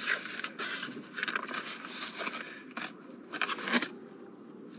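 Eating a Big Mac: chewing, with irregular crackling and scraping from the cardboard clamshell box and paper being handled.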